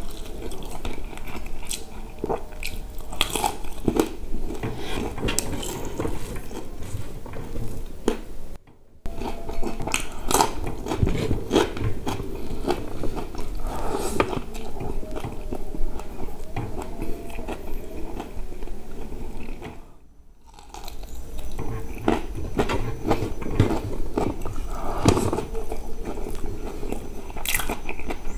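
Close-miked eating: biting into crispy-coated fried chicken and chewing it with rice, with crunching and wet mouth sounds. Two short silent breaks, about nine and twenty seconds in.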